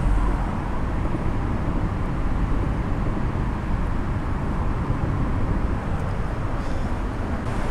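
Steady rumble of traffic on the highway overpass overhead, an even noise with no distinct events.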